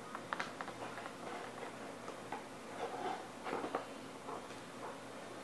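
Light clicks and rustles of hands handling a cardboard box and small plastic doll accessories, in scattered clusters with a run of sharper clicks near the start and another about three to four seconds in.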